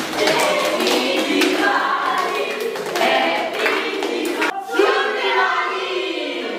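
A group of young people clapping their hands and singing together, many voices at once.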